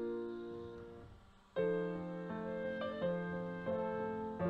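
Background piano music: notes ring and fade down to a brief lull, then a new phrase starts about a third of the way in and runs on.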